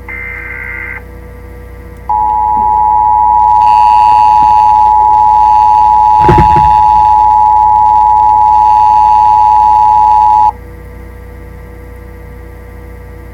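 The last burst of an Emergency Alert System digital header, a warbling data tone around 2 kHz, ends about a second in. It is followed by the EAS two-tone attention signal (853 and 960 Hz together), which sounds steadily and loudly for about eight seconds and then cuts off sharply. A brief thump comes about six seconds in, under a low steady hum.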